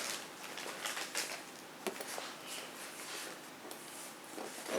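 Soft rustling and a few light clicks of gear and packaging being handled while a bag is unpacked.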